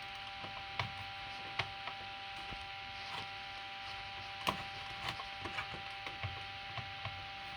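Low steady electrical hum with scattered light clicks and taps, the loudest about four and a half seconds in. No alarm sounds: the old smoke detector being tested stays silent.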